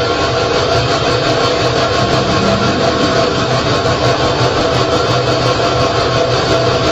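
Electric kettle heating water, a loud steady rushing rumble.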